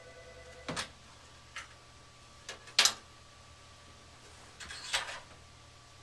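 Hands handling parts inside an open gas furnace cabinet: a few sharp clicks and knocks, the loudest about three seconds in, and a short rattle about five seconds in, over a faint steady hum.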